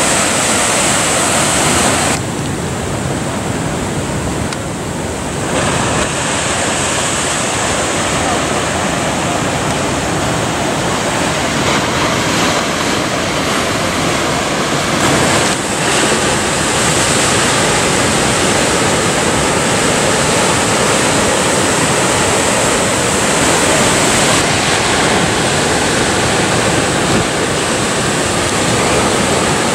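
Ocean surf breaking and washing, a steady, loud rush of water noise that dips briefly a couple of seconds in.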